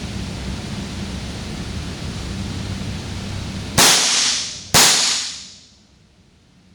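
Two shots from an Ekol Viper 9mm blank-firing revolver loaded with light-load 9mm (.380) blanks. The shots are about a second apart, each a sharp crack that trails off in the room. A steady hiss before them drops away after the second shot.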